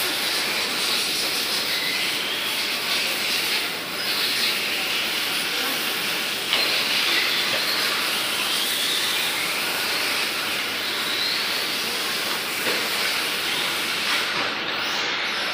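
Electric 1/8-scale RC buggies running on the track: a steady hiss of motors and tyres, with faint whines rising and falling in pitch as the cars accelerate and slow.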